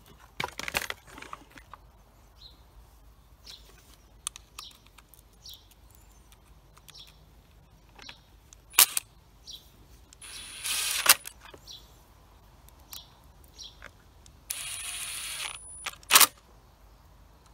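Milwaukee Fuel cordless driver running in two short bursts, about ten seconds in and again around fifteen seconds, driving screws back into a Husqvarna 236 chainsaw's housing. Sharp clicks and knocks of the tool and parts are heard in between.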